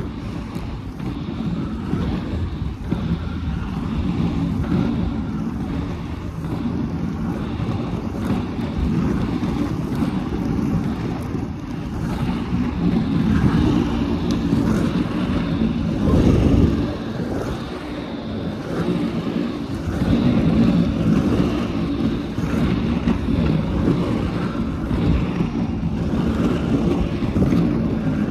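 Inline skate wheels rolling steadily over asphalt, with wind buffeting the phone's microphone. There is a brief louder gust of wind about halfway through.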